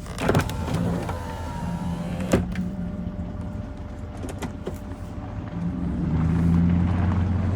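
2018 Chevrolet Silverado pickup engine running with its newly replaced catalytic converters, a steady low exhaust hum with two sharp knocks in the first few seconds. The engine grows louder from about two-thirds of the way in.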